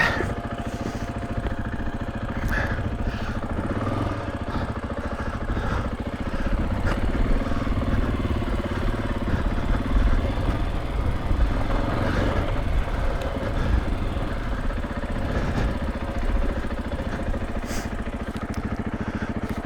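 KTM 500 EXC-F dirt bike's single-cylinder four-stroke engine running steadily while being ridden on a trail, with small rises and falls as the throttle is worked.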